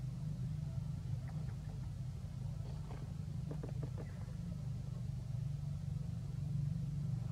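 A steady low engine hum, like a motor vehicle running nearby. A few faint short chirps come about three to four seconds in.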